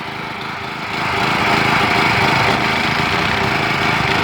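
Riding lawn mower's small engine running steadily, getting louder about a second in and holding there.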